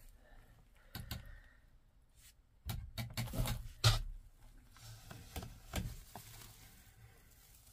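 Hand rustling through straw nesting material and knocking against a corrugated plastic pipe while gathering eggs: a run of knocks and rustles about three to four seconds in, the loudest just before four seconds, then a few softer ones.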